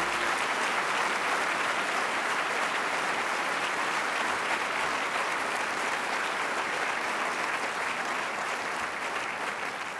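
Large audience applauding steadily, the clapping tapering off near the end.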